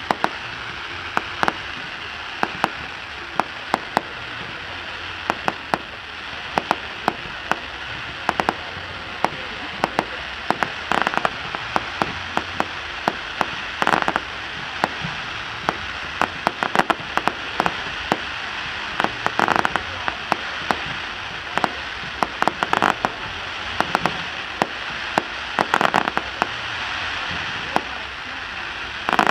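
Fireworks display: many sharp pops and crackles from crackling-star shells, irregular and several a second, over a steady hiss, with a louder hissing burst every few seconds.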